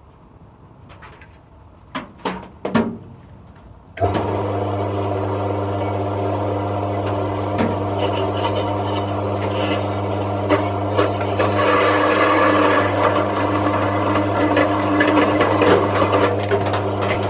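A few clicks and knocks, then about four seconds in an electric motor switches on and runs steadily with a strong hum and a grinding hiss.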